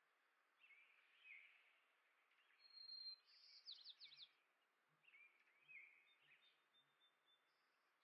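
Faint scattered chirps of small songbirds over a quiet outdoor background, with a louder, higher burst of quick notes about three seconds in.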